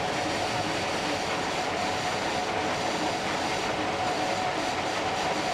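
Gleaner S67 combine running steadily while harvesting soybeans: a constant mechanical din with a steady whine on top.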